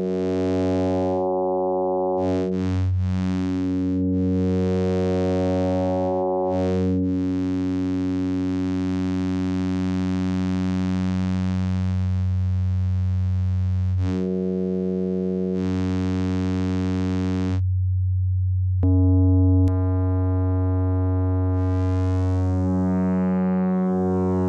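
A single sustained note from the u-he Zebra 2 software synthesizer, held at one steady low pitch while its oscillator waveform is reshaped. Its tone keeps changing as upper overtones switch in and out, and near the end the brightness sweeps as a shaper is brought in.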